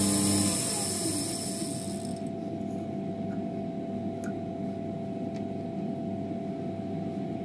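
Emco Compact 5 CNC lathe running down at the end of a programmed turning cut, as the tool returns to its starting point. A high whine stops about two seconds in, leaving a steady motor hum with a few light mechanical clicks.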